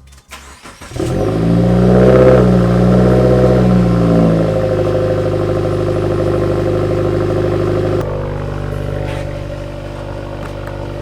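A Subaru Forester XT's turbocharged flat-four engine starts about a second in, flares up in revs, then settles into a steady idle that drops back slightly near the end.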